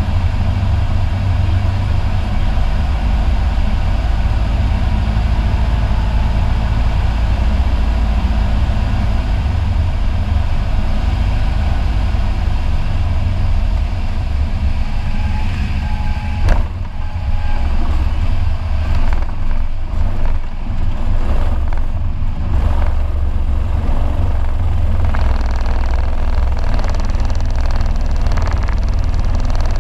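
Single-engine high-wing light airplane landing. A steady low drone of engine and airflow runs through the final approach. A sharp thump at touchdown comes a little past halfway, followed by uneven rumbling of the landing roll as the propeller slows.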